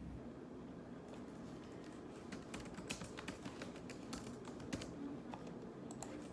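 Typing on a computer keyboard: quick, irregular, faint key clicks that start about a second in.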